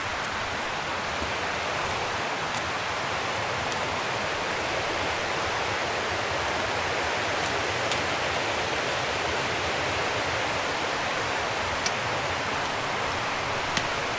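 Steady rushing noise of flowing water, like a mountain stream, with a few faint sharp clicks scattered through it.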